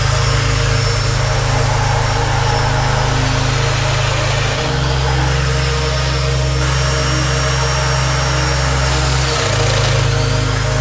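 Background music with sustained deep bass notes that change pitch twice, about halfway through and near the end.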